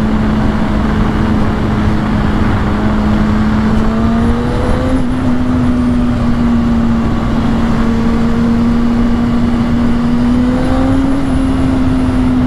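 2010 Kawasaki ZX-6R 600cc inline-four engine running at a steady cruising pace, its pitch holding nearly level with a couple of slight rises. A constant rush of wind and road noise runs beneath it.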